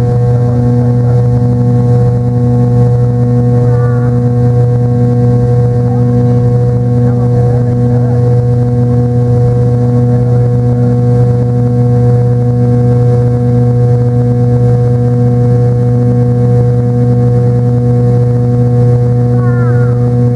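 Cabin noise inside a McDonnell Douglas MD-83 in flight: the loud, steady drone of its rear-mounted Pratt & Whitney JT8D turbofans, a low hum with a slow, regular beat running through it.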